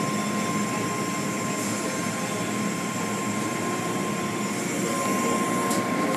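Automatic car wash running: blue cloth-strip brushes swishing over a car and water spraying, a steady rushing noise with a thin constant whine.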